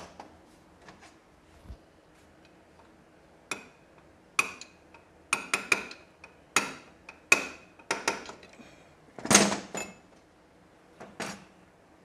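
Metal tools and engine parts clinking and knocking against each other, about a dozen sharp strikes with a brief ring, the loudest and longest about nine seconds in, during hand work on a motorcycle's camshaft and timing-chain assembly.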